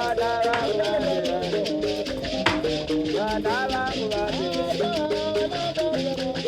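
Background music with a shaker-like rattle keeping a steady rhythm under a melody.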